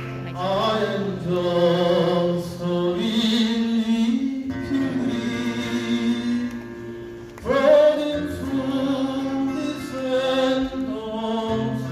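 Male vocal quartet singing in harmony over strummed acoustic guitars, the voices coming in about half a second in.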